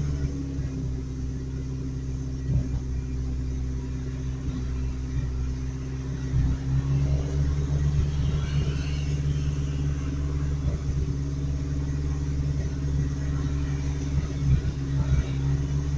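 Truck engine idling steadily, with a low, even rumble. The owners blame something lodged in the muffler, causing back pressure, for the engine stalling at idle.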